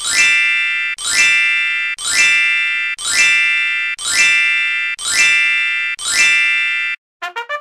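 A bright chime sound effect struck seven times, about once a second, each strike ringing and fading. A few quick short notes start near the end.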